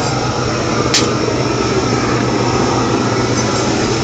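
Stick arc welder running: a steady low hum under a dense, even crackle, as of a welding rod burning in the arc. A single sharp click about a second in.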